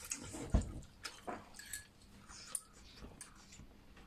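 A person chewing food, with small eating clicks and a dull knock about half a second in.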